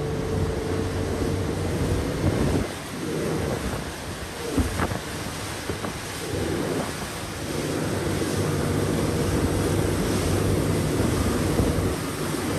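Motorboat running at speed: a steady engine drone under rushing water and spray from the hull and wake, with wind buffeting the microphone. The engine hum drops back under the wind and water about two and a half seconds in and comes back strongly about three seconds later.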